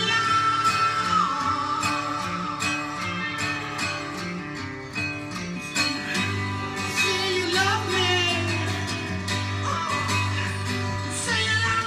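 A blues-tinged metal song playing from a vinyl record: a singer holding long notes over electric guitars, bass and drums.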